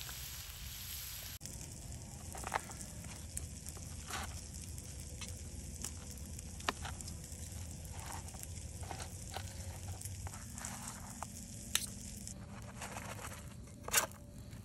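Food sizzling in a frying pan, with occasional sharp clicks and taps, the loudest near the end.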